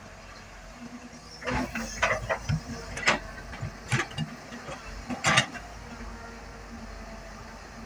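Caterpillar 320 hydraulic excavator's diesel engine running steadily, with a run of sharp knocks and clanks from the working machine between about a second and a half and five and a half seconds in.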